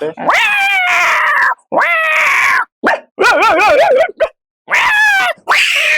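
A man imitating animal calls with his voice: about five long, gliding cries in a row, the middle one wavering up and down in pitch.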